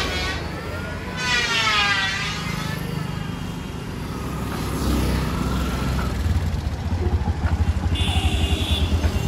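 Street traffic: a small engine throbbing close by, growing louder from about five seconds in, with a wavering high-pitched sound in the first few seconds and a short beep about eight seconds in.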